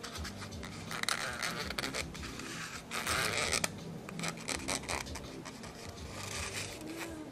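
Scratching and rubbing of plastic model parts as glue is applied to a plastic truck cab, with two longer scratchy scrapes, one about a second in and one about three seconds in.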